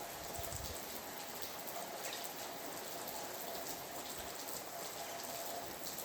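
Steady rain, with many individual drops ticking on surfaces over an even hiss.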